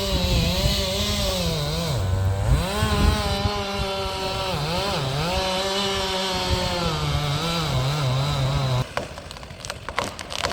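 Two-stroke chainsaw running in a cut, its engine pitch dipping and recovering repeatedly as it bogs under load. It cuts off suddenly about nine seconds in, and a few sharp cracks follow.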